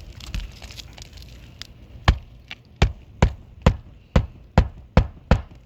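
Hand hammer driving a roofing nail through an asphalt shingle: about eight sharp, evenly spaced blows, roughly two a second, starting about two seconds in.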